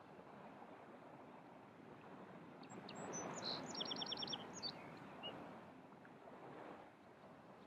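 Gentle surf washing on a beach, swelling about three seconds in, while a small bird sings one short song with a quick run of repeated high notes.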